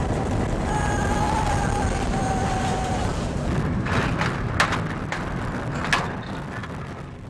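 Steel roller coaster train, Millennium Force, rumbling along its track with rushing wind, while riders yell in held cries during the first few seconds. A few sharp clacks come from the train about four to six seconds in as it slows toward the station, and the noise then dies down.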